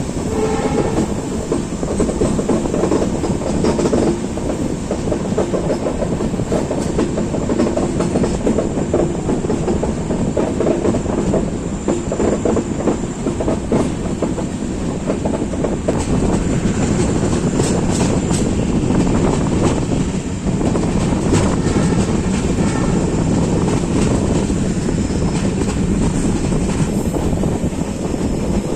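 Passenger train of LHB coaches running along the line: a steady rumble of wheels on rails, with the clickety-clack of rail joints.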